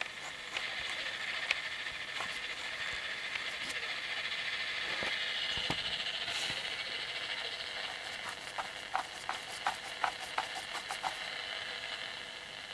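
Home-built slug-tuned shortwave radio receiver hissing with band noise, the distant station's signal drowned in it, with scattered clicks of static crackle. The hiss swells a little in the middle and eases again.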